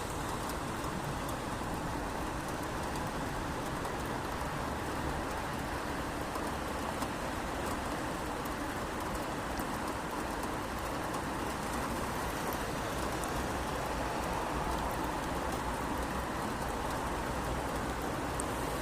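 Steady rain falling on a city street: an even, unbroken hiss with scattered faint drop ticks.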